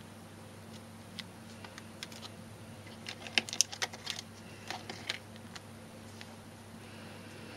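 Plastic-sleeved sticker cards clicking and rustling as they are handled and pulled out of a small metal tin, with a quick run of sharp taps about three to four seconds in.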